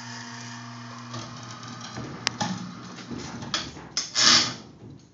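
Electric overhead hoist motor humming steadily, stopping about a second in. Then the aluminum jon boat it has lifted, hanging from a single bowstring, knocks and clicks as a man shifts his weight on it during a load test of the string, with a loud scraping thump a little after four seconds.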